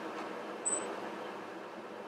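Steady background hiss of room noise, with one brief high-pitched chirp a little over half a second in.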